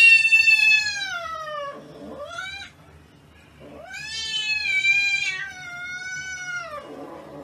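Cat meowing: two long drawn-out meows, each falling in pitch at its end, with a short rising meow between them.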